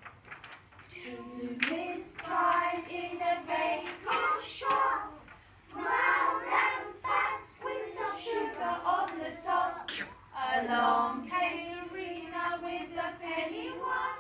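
A group of young children singing together, with held notes and short breaks between phrases, and a few sharp clicks among the voices.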